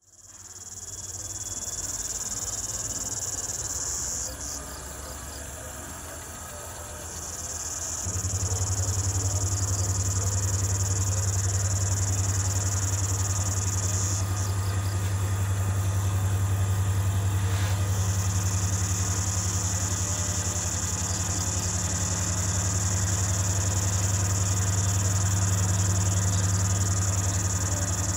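A high, steady chorus of insects shrilling, which breaks off for a few seconds at a time. About eight seconds in, the low, steady drone of the CC 205 diesel locomotives' engines grows much louder and stays.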